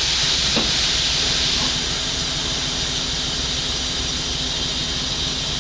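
Compressed air hissing steadily through a railroad car's angle cock and brake pipe as the train line is charged. The cock is only cracked open, because letting the air in all at once would dump the brakes. The hiss eases a little about two seconds in.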